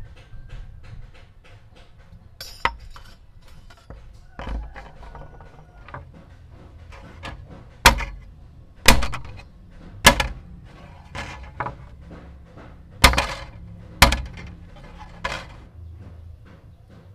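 Tin snips biting through thin brass sheet, giving a run of small crisp clicks. In the second half come about seven loud metallic clatters about a second apart, each with a short ring: cut brass strips being dropped onto the wooden workbench.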